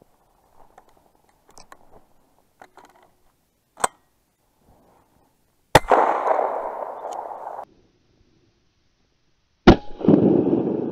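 Two shotgun shots from an MP-155 semi-automatic shotgun, a little under four seconds apart, each followed by a couple of seconds of dense noise. Faint crunching steps in snow come before the first shot.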